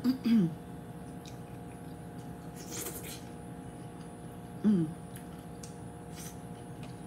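Person eating boiled crawfish dipped in sauce: a brief wet slurp about three seconds in, with two short hummed "mm"s, one at the start and one near the end.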